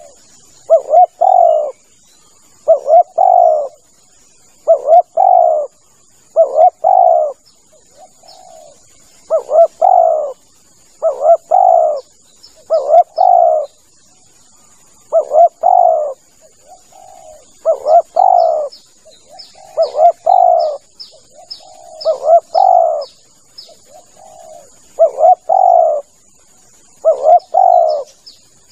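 Spotted dove cooing: loud phrases of two or three low coo notes, repeating about every two seconds. Small high chirps from another bird come in, more often in the second half, over a steady thin high tone.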